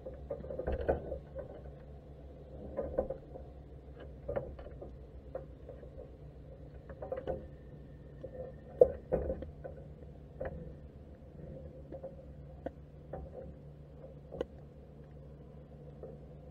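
Irregular muffled clicks and knocks, heard underwater through the waterproof housing of a camera inside a crab pot on the seabed, over a steady low hum. These are crabs moving on the pot's wire mesh and against the camera housing. The sharpest knock comes about nine seconds in.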